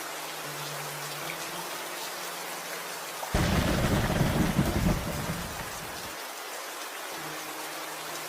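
Steady rain with a roll of thunder that starts suddenly about three seconds in, rumbles low and loud for about three seconds, then fades back to the rain alone.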